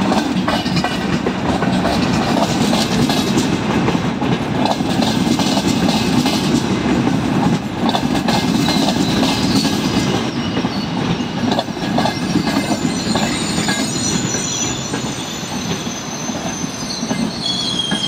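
Frecciarossa ETR 500 high-speed train rolling slowly along the platform as it comes in to stop: a steady rumble with wheels clacking over rail joints, easing off toward the end as thin high brake and wheel squeals set in.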